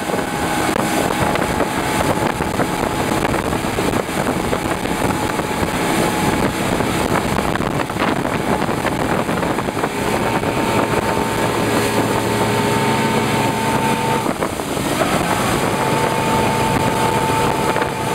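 Motorboat engine running at speed while towing a loaded banana boat, under a steady rush of wind and churning wake water. The engine tone holds steady, dips briefly about two-thirds of the way through, then climbs back.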